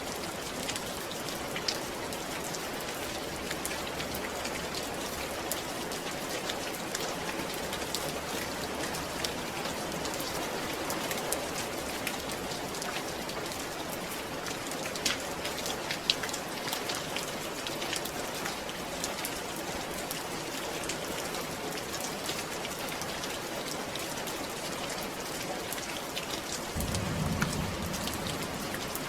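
Steady rain, with a dense patter of individual drops ticking over an even hiss. A short low rumble comes near the end.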